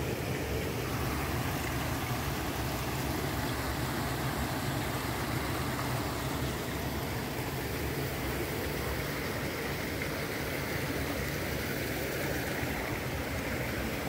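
Steady rushing outdoor noise with no distinct events, of the kind made by wind on the microphone or water running among rocks.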